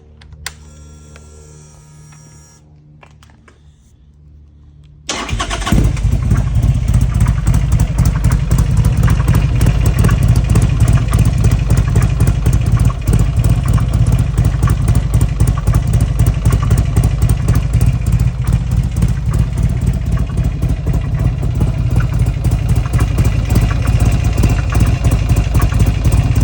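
Buell XB12S motorcycle's air-cooled V-twin engine starting suddenly about five seconds in, then running steadily with a dense, rapid ticking, a noise its owner calls weird.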